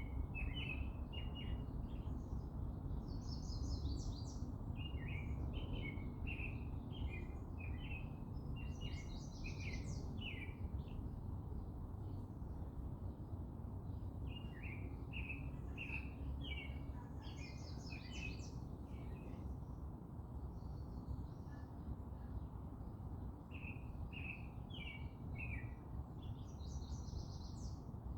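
Garden birds singing in runs of quick, short chirps, each run lasting a few seconds with pauses between, and a few brief higher trills mixed in. A steady low background rumble runs underneath.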